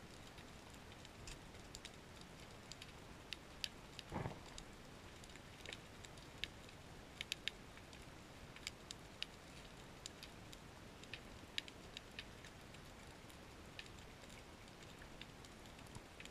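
Faint underwater ambience: sparse sharp clicks and crackles over a low hiss, with one duller knock about four seconds in.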